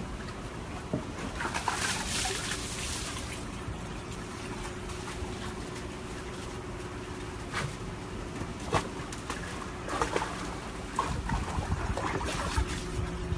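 Water splashing and sloshing in a plastic tub as a husky moves about in it, with several sharp splashes or knocks scattered through, over a steady hum.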